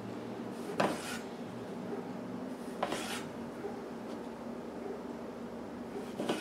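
A kitchen knife cutting tomatoes and knocking on a plastic cutting board, with two sharp knocks about two seconds apart over a low steady hum.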